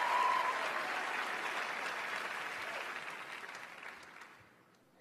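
Large theatre audience applauding, with a few voices cheering near the start; the applause dies away steadily to near silence over the last second or so.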